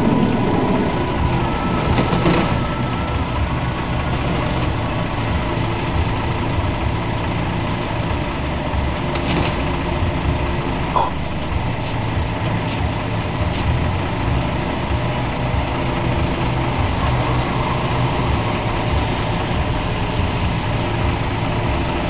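Crane truck's engine idling steadily while it drives the hydraulic crane that hoists a car onto the flatbed, with a few short knocks about 2, 9 and 11 seconds in.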